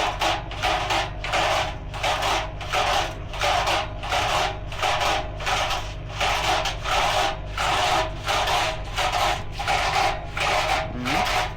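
Old Hotpoint washing machine's drum turning slowly, making a regular rubbing swish about one and a half times a second over a steady low motor hum.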